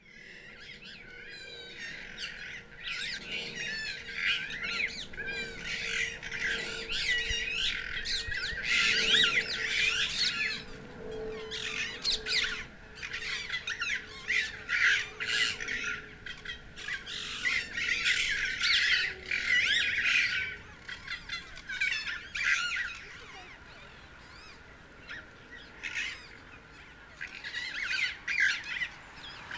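A dense chorus of many birds calling at once, rapid overlapping chatter and calls that thin out for a few seconds near the end before picking up again. A faint steady hum sits underneath.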